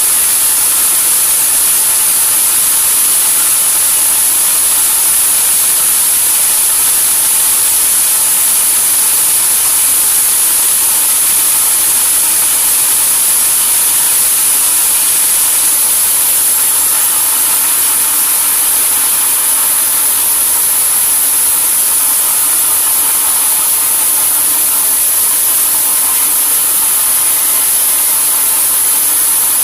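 Sawmill machinery running steadily: a loud, unchanging mechanical noise with a strong high hiss and a faint hum, with no pauses or cuts starting and stopping.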